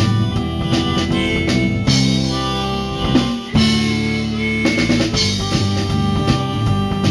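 Instrumental break in a band's song: drum kit keeping a steady beat under held bass and guitar notes. About three seconds in the band briefly drops out, then comes back in full.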